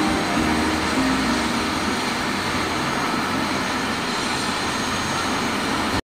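Airbus AS350 Écureuil helicopter running on the ground with its main rotor turning: a steady turbine and rotor noise that cuts off suddenly near the end.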